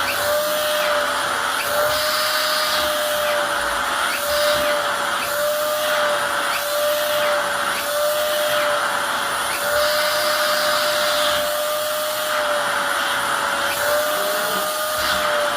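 An electric motor running steadily, with a constant hum and a light regular ticking.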